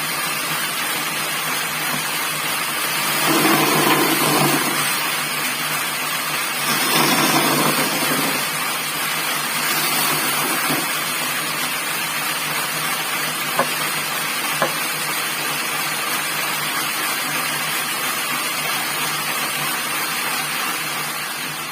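Homemade wooden bandsaw running steadily, with two louder stretches about three and seven seconds in and two sharp clicks a second apart around the middle.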